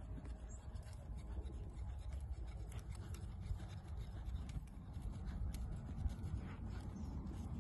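Low, uneven rumble of wind buffeting the microphone, with a few faint ticks scattered through it.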